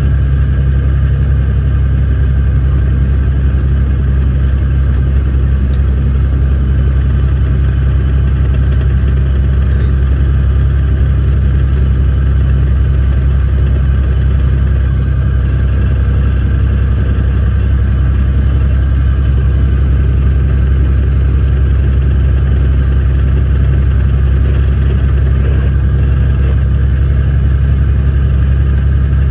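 Off-highway logging truck's diesel engine running steadily under way, heard inside the cab as a loud, even, low drone.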